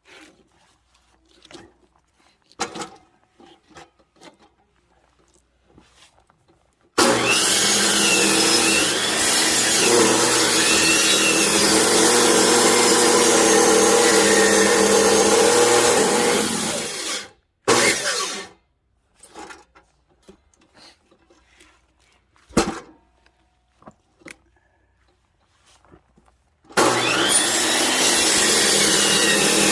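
Power saw cutting logs for firewood: it runs steadily for about ten seconds, stops, gives a short burst, then starts again near the end. In the quiet gaps there are scattered knocks and one sharp thud as the wood is handled.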